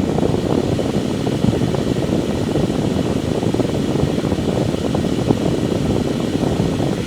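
Benchtop jewellery dust-collector fan running steadily at full airflow: a loud, even rush of air measuring about 83 to 85 dB.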